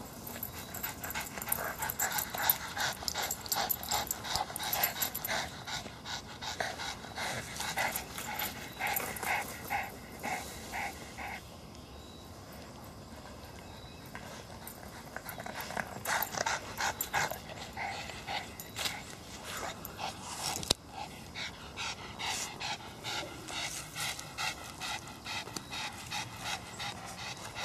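Boston terrier panting hard in quick rhythmic breaths after chasing a tennis ball; the panting eases off for a few seconds in the middle, then resumes. A single sharp click about two-thirds of the way in.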